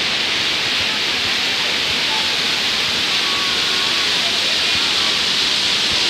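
Steady rushing of a mountain waterfall, with faint chatter of people under it.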